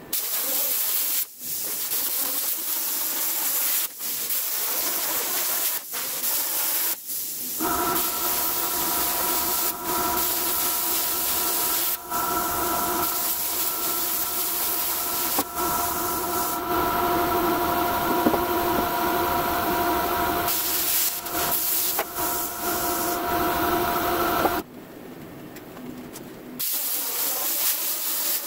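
Plasma cutter hissing as it cuts through a rusty steel Jeep frame, stopping and restarting briefly several times. From about eight seconds in, a steady whine in several tones rides over the hiss for some seventeen seconds, then drops out; the sound falls quieter for about two seconds before the hiss returns near the end.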